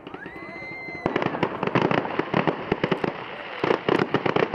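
Aerial fireworks: a whistle rising in pitch then holding steady for about a second, followed by a rapid, dense run of bangs and crackles from bursting shells.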